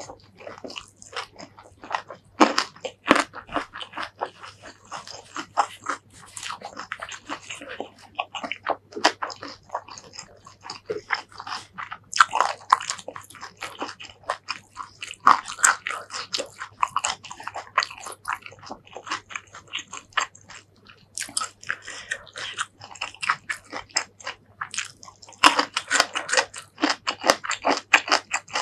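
Close-miked eating: chewing and crunching food by mouth, with dense runs of wet mouth clicks and several louder crunchy bites.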